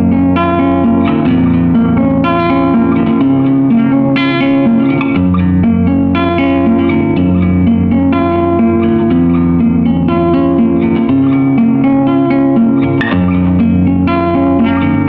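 Instrumental background music led by plucked guitar, with held low notes underneath and a new note or chord every second or so.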